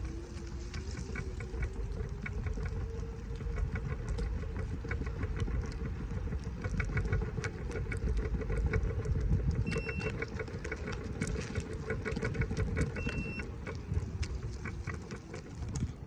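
Segway Ninebot Max G2 electric scooter riding at a steady low speed: a steady hub-motor whine and road rumble, with irregular clattering rattles throughout. The rattle is an extraneous noise from the front suspension, a fault in it.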